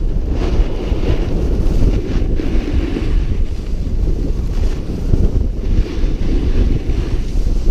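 Wind rushing over a GoPro's microphone as a snowboard rides down a groomed slope, a heavy low rumble, with the board's edge scraping the snow in a hiss that swells and fades every second or two through the turns.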